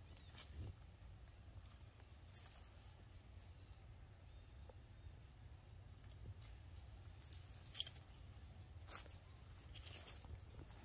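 A young macaque handling and biting plant stems among leaves: faint, sharp crackles and snaps every second or two over quiet background noise. Soft, high little chirps repeat through the first half.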